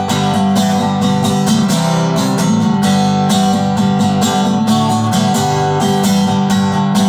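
Instrumental country music break: strummed acoustic guitar with a steady beat, between sung lines.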